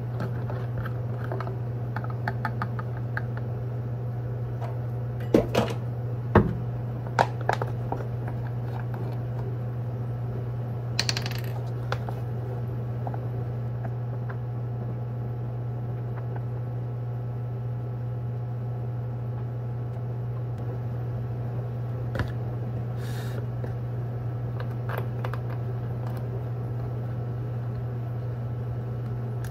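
Kitchen noises: a steady electric hum from a running appliance, with sharp metallic clinks and clatter of utensils and dishes. The clinks come in a cluster about five to eight seconds in, then as a short rattle around eleven seconds, and a few more near the end.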